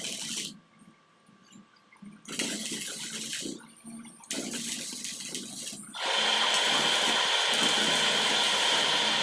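MIG welding on steel: the arc hisses and crackles in short runs with pauses, then burns steadily and louder for about three seconds as a longer bead is laid.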